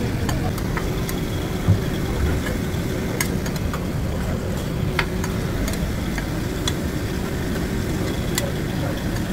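Metal spatulas clicking and scraping against a flat-top griddle as meat patties are turned, a sharp click every second or two over a steady low rumble.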